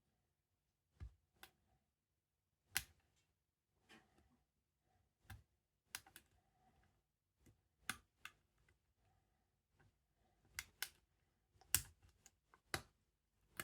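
Scattered sharp clicks, about fifteen at irregular intervals, from a lock pick and tension wrench working the pin tumblers of a heavy-duty Chubb lock cylinder.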